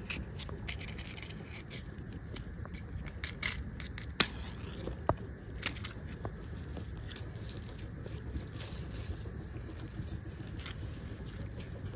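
Safety match struck on a matchbox to light a small twig fire: one sharp strike about four seconds in, and a second shorter one about a second later, among light scraping and rustling of dry leaves and twigs.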